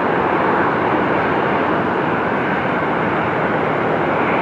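Boeing 747-400 freighter's four jet engines at takeoff thrust, a loud, steady rushing noise as the heavily loaded jet rotates to lift off.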